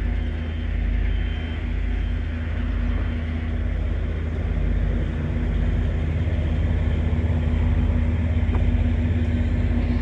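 Heavy truck's diesel engine idling steadily: a constant low rumble with a steady hum over it.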